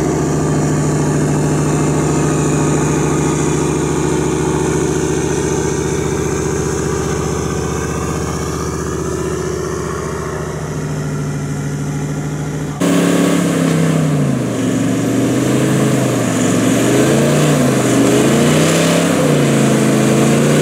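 A 4x4's engine running at steady revs, then, after an abrupt cut about thirteen seconds in, its revs rising and falling about once a second.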